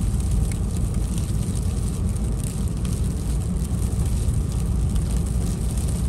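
Steady low road and engine rumble heard inside a car's cabin while driving, with scattered faint ticks of snow hitting the windshield.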